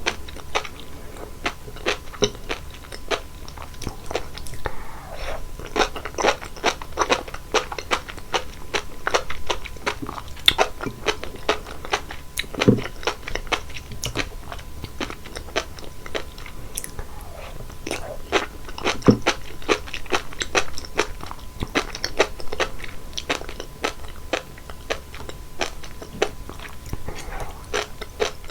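Close-miked chewing of sea grapes, the small seaweed beads bursting in quick, irregular crisp clicks.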